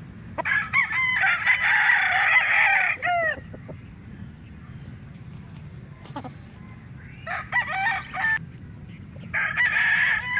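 Rooster crowing three times: a long crow of about three seconds at the start, a shorter one past the middle, and another beginning near the end.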